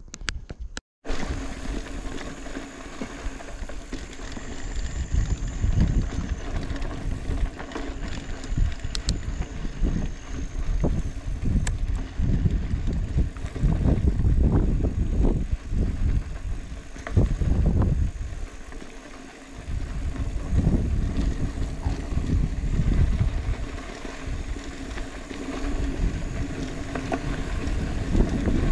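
Wind buffeting the camera microphone while riding, swelling and easing in gusts, over a faint steady hum. The sound drops out briefly about a second in.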